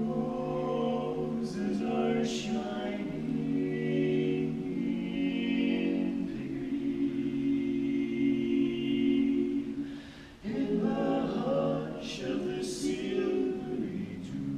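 Male barbershop quartet singing a cappella in four-part close harmony, holding long chords. The singing breaks off briefly about ten seconds in, then the chord comes back in.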